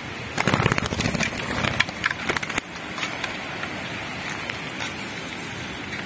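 A trapped dove beats its wings hard against dry straw and the trap as it struggles: a fast flurry of wingbeats and rustling starts about half a second in and stops after about two seconds.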